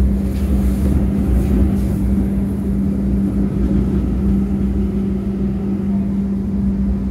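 Steady running noise inside a Pune Metro train car: a low rumble with a constant hum.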